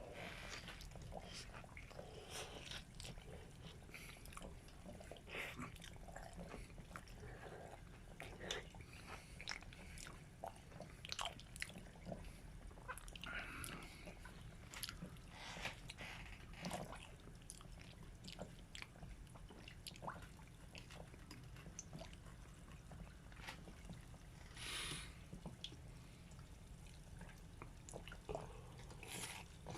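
A person eating a fried croquette: scattered small bites, crunches and chewing sounds with light clicks.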